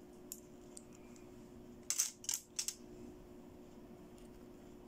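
Plastic-handled toy makeup brushes clicking against each other and the plastic toys as they are set down, a quick cluster of four or five light clacks about two seconds in, with a few fainter ticks before it.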